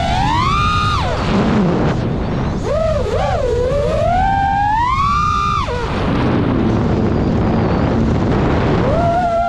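Quadcopter motors (2306.5-size, 1850kv, on 6S) and propellers whining with throttle. The pitch climbs sharply in the first second, then cuts out into a rush of air with the throttle chopped. It wavers, climbs again and cuts out about six seconds in, then comes back near the end.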